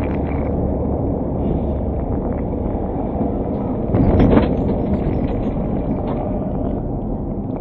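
Steady road noise of a car driving at highway speed, heard from inside the cabin: tyre and engine rumble, with a brief louder rush about four seconds in.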